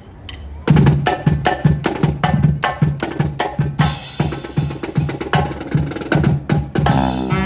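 Marching band drum line playing a cadence, with snare and bass drums striking a steady beat. A few light stick clicks come before the drums start, and the brass comes in near the end.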